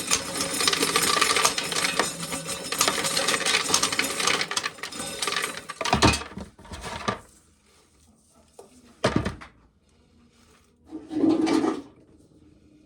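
Corn sheller working an ear of corn, its teeth stripping kernels with a dense clattering rattle for about six seconds before it stops. A few separate knocks follow.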